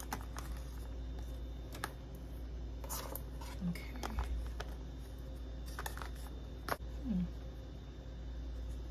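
Scattered light clicks and rustles of hands handling a rubber watch sport band and its paperboard packaging tray, over a steady low hum.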